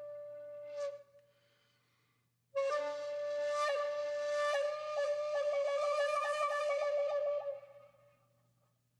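Background music: a wind-instrument melody of long held notes. It breaks off about a second in and comes back after a short gap, then plays a fast repeated figure on one note before fading out near the end.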